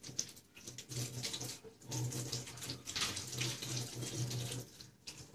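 Water trickling and splashing in a bucket of live mentarang clams, irregular and strongest about halfway through, with a low hum that pulses on and off.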